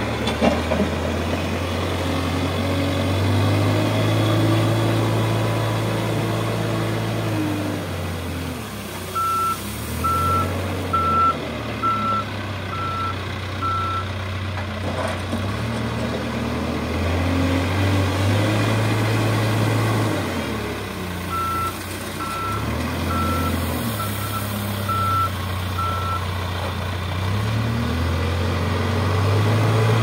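CASE backhoe loader's diesel engine running, its speed rising and falling every few seconds as the machine drives and works the loader. Twice, about ten seconds in and again after about twenty seconds, its reversing alarm sounds a run of even beeps, about one a second, while it backs up.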